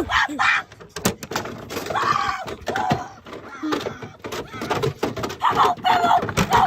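Excited voices with several sharp knocks or clicks among them.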